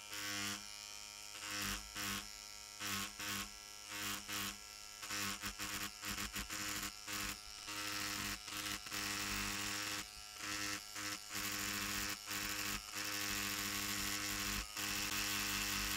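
Cartridge tattoo machine running with a steady electric buzz while its tip taps cased leather as a thumper to smooth and push out a bevel. Louder, harsher stretches come and go irregularly over the hum.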